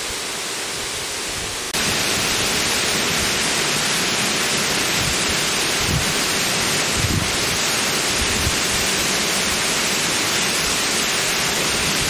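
Steady rushing of a tall waterfall pouring onto rocks, which gets louder and brighter about two seconds in.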